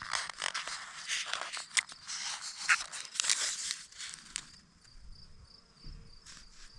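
Plastic packaging being handled and torn open, a dense crinkling with sharp crackles, for the first four seconds or so. Then it goes quieter, leaving a faint, high pulsing trill.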